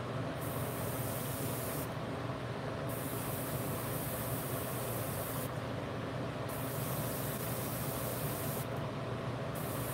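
Airbrush spraying paint onto model kit parts: a steady hiss of air over a low hum.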